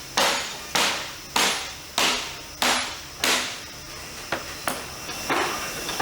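Hammer blows at a steady pace of about one every 0.6 s, six strong strikes, then weaker and less regular blows in the last two seconds.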